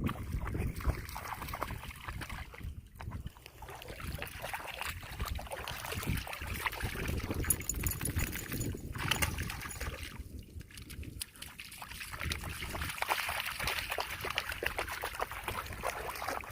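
Shallow seawater splashing and sloshing as a dog wades and plays in it, a continuous irregular patter of small splashes.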